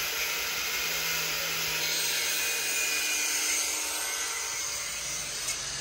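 Steady hissing, whirring machine noise with a faint low hum, running evenly without a break.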